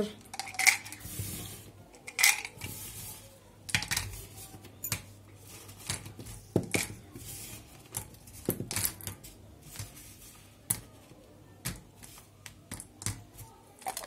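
Small micro USB panel mount connectors, plastic bodies with metal pins, clattering as they are dropped by the handful into a plastic container: irregular clicks and clinks.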